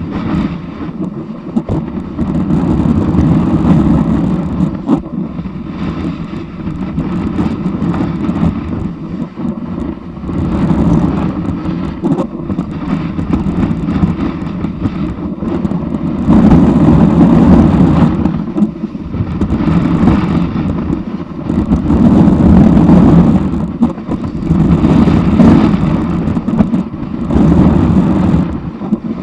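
Snowboard sliding and carving over packed snow, heard through a camera mounted on the board: a loud, rough scraping rumble that swells and eases as the board turns back and forth.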